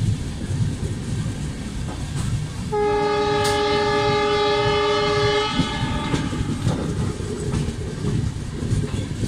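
Wheels of a moving passenger train rumbling and clacking over the track, heard from an open coach door. About three seconds in, a locomotive horn sounds steadily for about three seconds, its lower tone dropping out shortly before the higher one stops.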